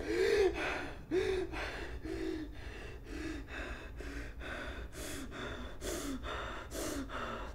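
A man sobbing hard: a quick string of short, choked cries and gasping breaths, about two a second, loudest in the first second or so.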